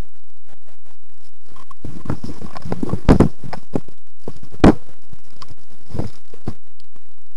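Handling noise from the gun-mounted camera being swung about: rustling, scraping and knocks close to the microphone, with two sharper knocks about three and four and a half seconds in.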